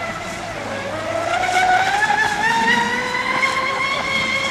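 Hopf El Diabolo RC model speedboat racing across the water, its motor note rising in pitch over the first few seconds and then holding steady at speed, over a hiss of spray.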